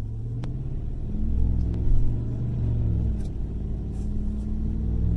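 Straight-piped V8 exhaust of a Chevy Silverado Trail Boss with the muffler and flapper valve deleted, heard from inside the cab as the truck accelerates. The engine note climbs, drops back about three seconds in, then rises again.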